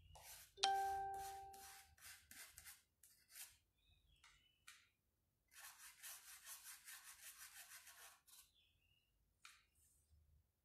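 A paintbrush taps once against a glass paint jar with a short ringing note, followed by short scraping strokes. Later the brush bristles scrub quickly back and forth on the wood, brushing on dark green paint.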